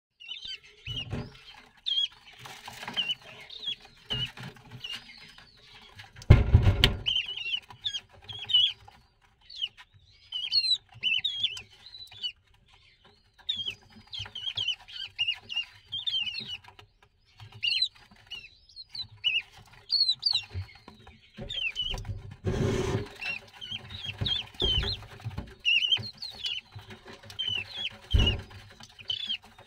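Downy ringed plover chicks giving many short, high peeping calls, overlapping one another throughout, with a few dull low thumps in between.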